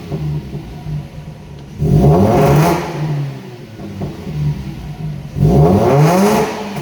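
Mazda RX-8's twin-rotor Wankel rotary engine idling and revved twice in short blips that rise and fall back to idle. It is misfiring, a symptom the owner puts down to bad ignition coils.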